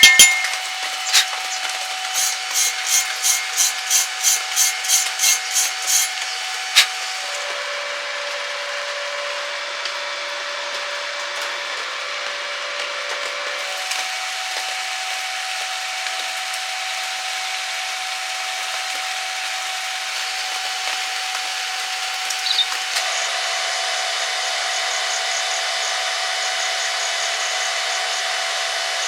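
Electric arc welding: the arc's steady crackling hiss, with a couple of abrupt changes in tone. In the first few seconds, about a dozen even strokes, about three a second.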